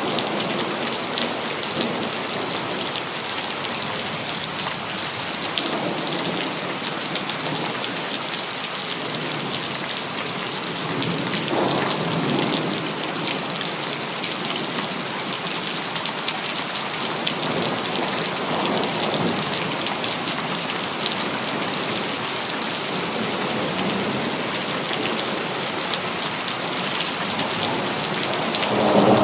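Steady rain falling on hard surfaces, a dense hiss speckled with individual drop ticks. A few soft rolling swells of thunder rise under it, one a little before the middle and one at the very end.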